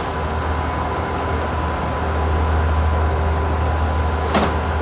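Steady drone of transmitter equipment running, its cooling fans and power supplies making a low hum with a faint steady whine over it. A single click comes about four seconds in.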